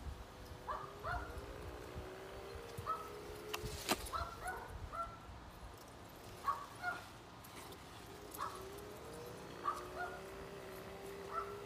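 Dog lure machine's motor whining as it reels in the line, its pitch gliding up and down in long stretches, while the Rhodesian Ridgeback chasing the lure gives short yips throughout. A sharp click comes about four seconds in.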